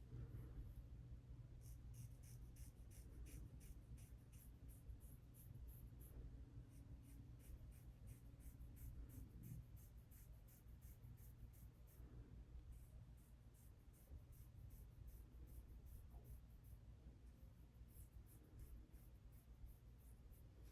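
Faint, quick scraping strokes of a small facial razor drawn over skin, shaving off peach fuzz, in runs of several strokes a second with brief pauses between.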